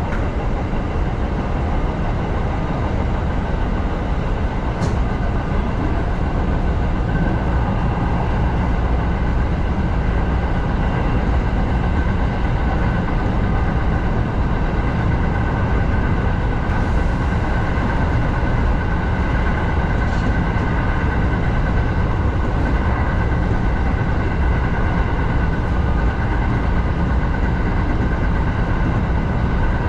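Kintetsu 7000 series electric train running steadily along an elevated track, heard from inside the driver's cab: a continuous rumble of wheels on rail with a faint steady whine, and a few faint clicks.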